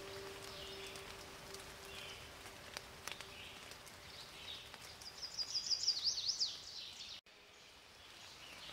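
Faint outdoor ambience with scattered bird chirps. About five seconds in, a bird sings a quick run of high sweeping notes. The ambience cuts off abruptly about seven seconds in, leaving a quieter hiss.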